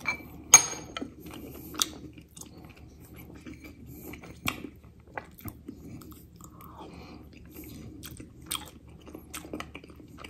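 A person chewing a mouthful of soft, mushy ration spaghetti and sausage close to the microphone, with a metal spoon clinking against the dish a few times, loudest about half a second in.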